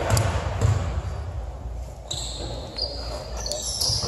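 A basketball dribbled on a hardwood gym floor, with a few bounces in the first second. About two seconds in, sneakers start squeaking on the court in short, high, stepping squeals.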